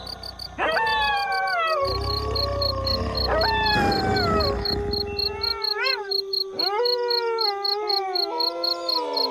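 A pack of wolves howling in chorus: several long howls start high and slide down in pitch, overlapping with a steady held howl and a few short rising-and-falling yips. Crickets chirp with a steady high pulsing throughout.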